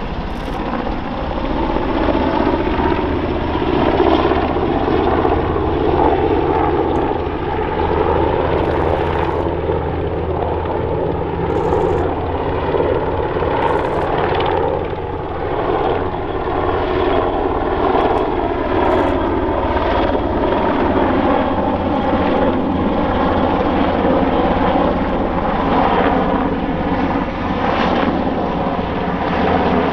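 NH90 military helicopter in flight overhead: steady rotor and turbine sound from its twin Rolls-Royce Turbomeca RTM322 turboshaft engines, with the whine's pitch drifting slowly as the helicopter moves about the sky.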